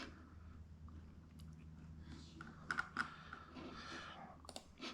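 Faint scattered clicks and taps, typing-like, over a low steady hum.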